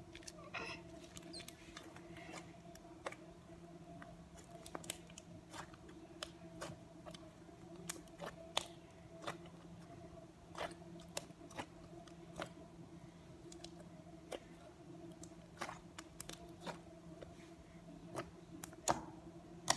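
White slime being squeezed and kneaded by hand, giving irregular sharp clicks and pops, about one to three a second, with a loud one near the end. A steady low hum runs underneath.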